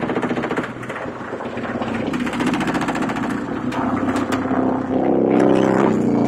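Kicker CVX 15-inch subwoofer in a sealed box, driven by a CT Sounds 1400.1 amplifier, playing bass-heavy music at high volume. The sound is distorted and buzzing, with fast pulsing throughout. About five seconds in, a deep sustained bass note comes in and it grows louder.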